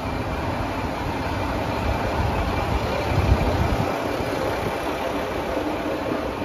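Diesel engine of a Sanriku Railway 36-700 series railcar idling at a standstill: a steady low engine rumble that eases slightly about four seconds in.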